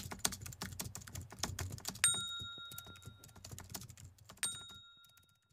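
Sound effect of rapid computer-keyboard typing clicks, with two bright ringing dings, one about two seconds in and another after four seconds. The clicking stops shortly before the end.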